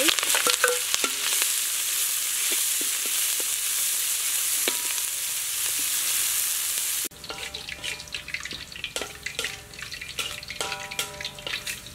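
Chopped chillies, garlic, lemongrass and kaffir lime leaves sizzling loudly in hot soybean oil in a wok, stirred with a metal ladle. About seven seconds in the loud sizzle cuts off abruptly, giving way to quieter crackling and clicks with a few short high tones.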